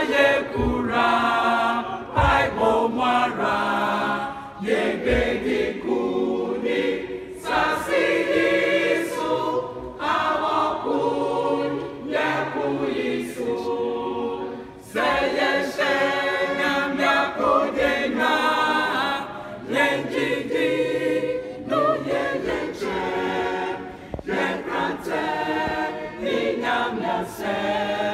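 Church choir of women's and men's voices singing together in phrases.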